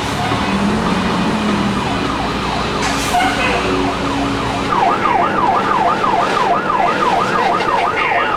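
Emergency vehicle siren in a fast yelp, sweeping up and down about three times a second, faint at first and much louder from about halfway through. It sounds over vehicle engine and road noise.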